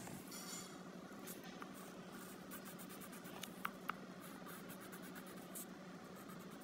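Coloured pencil scratching on paper in quick, faint strokes as a drawing is coloured in, with two small clicks about three and a half seconds in.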